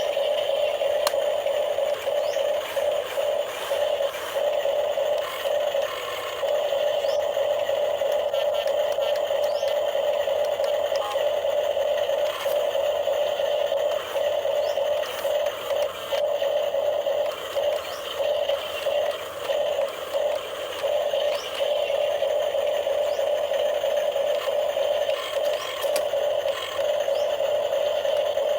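Electric motors of a remote-control model excavator and truck whining at a steady pitch, cutting out and back in irregularly as the controls are worked.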